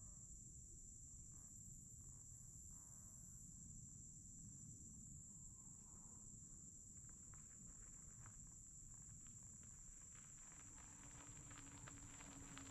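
Faint outdoor ambience, near silence: a steady high insect drone over a low rumble, with light clicks growing more frequent over the last few seconds.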